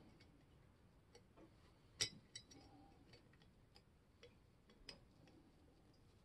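A small screwdriver working a screw in a cast iron level, giving faint, scattered clicks. The sharpest click comes about two seconds in, and another comes near five seconds.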